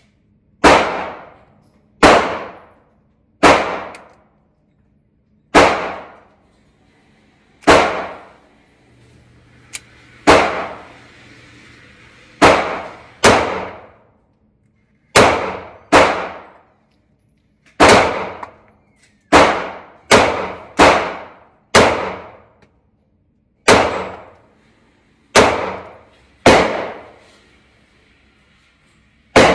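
FMK C91 9mm semi-automatic pistol being fired shot by shot, about twenty rounds at an irregular pace, sometimes two or three in quick succession, each shot followed by a short echoing tail in an indoor range bay.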